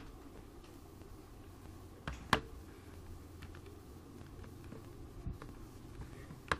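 A Casio fx-570ES PLUS calculator being set down on the paper, with one sharp knock about two seconds in and a few faint handling knocks after, over a low steady room hum.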